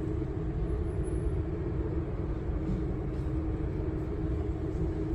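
Steady low rumble with a constant hum: the background noise of an indoor shooting range, such as its ventilation, with no shots fired.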